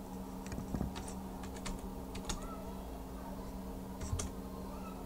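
Computer keyboard being typed on, with short irregular key clicks a few at a time, over a steady low hum.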